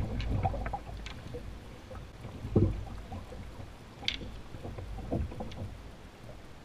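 Wooden canoe pole knocking and clicking against the rocky riverbed and the canoe as the canoe is poled through shallow moving water, with water gurgling and a low steady rumble underneath. The loudest knock is a low thump about two and a half seconds in, with a sharp click a second or so later.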